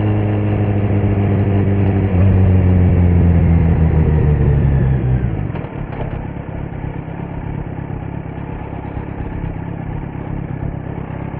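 Kawasaki Z900's inline four-cylinder engine through a Leo Vince muffler with no dB killer, its note falling as the bike slows off the throttle. About five seconds in it drops to a quieter, steady idle.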